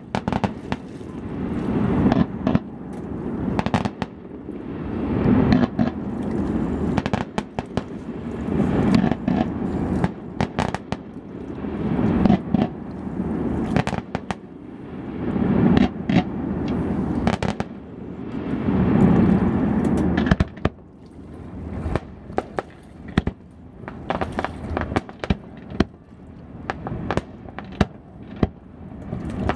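Aerial fireworks going off: a dense run of sharp bangs and crackles over a low rumble that builds and dies away every three to four seconds. In the last third the rumble thins out and the bangs come more separately.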